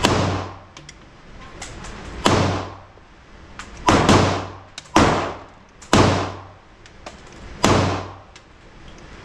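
Handgun shots at a range, about seven in all at an uneven pace of roughly one a second, two coming close together about four seconds in; each shot rings on in a reverberant room.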